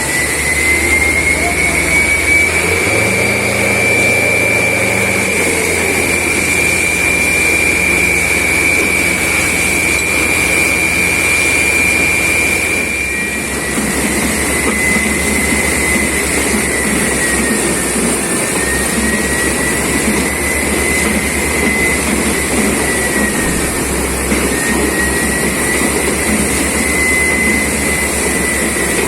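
Borewell drilling rig running steadily, a heavy engine-driven rumble with a high whine that holds level, dips slightly about halfway through, then wavers gently in pitch.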